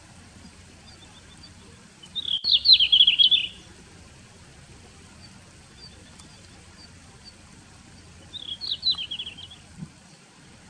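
Male red-flanked bluetail singing: two short, fast warbling phrases, one about two seconds in and a softer one near the end, with faint high ticking notes between them.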